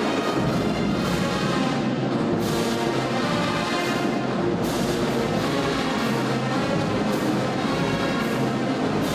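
Band playing live: brass instruments over drums, with cymbal-like crashes every couple of seconds.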